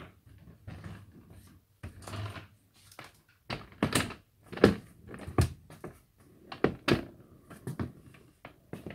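Rollator walker with hard plastic wheels being pushed over a wooden floor, with footsteps: soft scuffing at first, then from about a third of the way in an uneven run of sharp knocks and clunks from the wheels and frame, the loudest about halfway.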